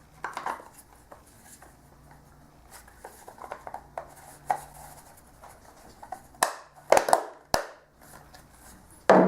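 Hands handling objects: light rubbing and taps, then a few sharp knocks about six and a half to seven and a half seconds in.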